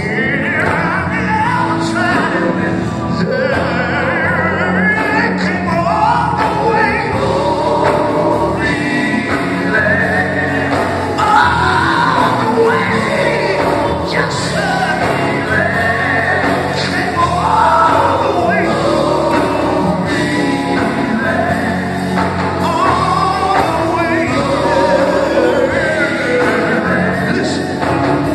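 Live gospel music in a large hall: a male lead singer on a microphone with the group's backing vocals over an amplified band.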